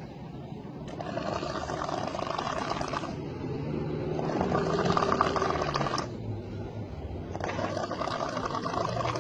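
A person snoring: three long, noisy snoring breaths, each about two seconds long and roughly three seconds apart, with quieter, lower breathing between them.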